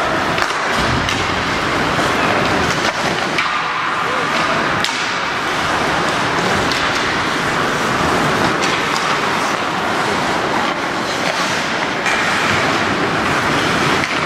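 Ice hockey play in a rink: skates scraping and carving the ice, with scattered sharp clacks of sticks and puck, over a steady murmur of spectators.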